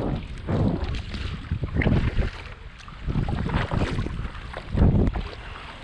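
Gusty wind buffeting the microphone in irregular surges, over water sloshing around a kayak.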